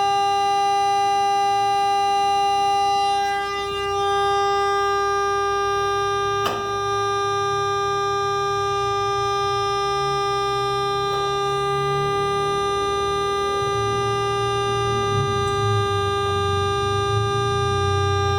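Steady electrical hum from an Acsoon AF400M 400 Hz AC power source running, one pitched tone with a ladder of overtones over a low uneven rumble. A single sharp click comes about six and a half seconds in.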